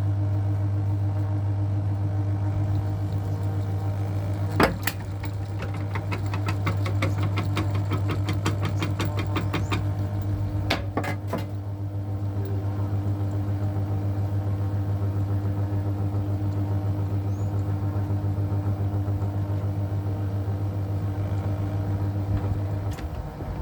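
Electric ceiling fan motor humming steadily. A sharp click comes about four and a half seconds in, followed by a run of fast ticks for several seconds and a pair of clicks a little later. The hum cuts off near the end.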